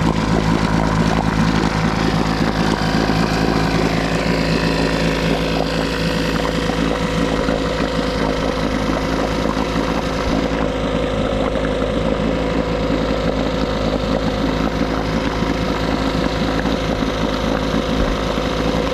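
1976 Johnson 6 hp two-cylinder two-stroke outboard engine running steadily at low speed, with its idle jet freshly cleaned and set. It idles in the start position but, according to the owner, wants to shut off when the throttle is moved past start.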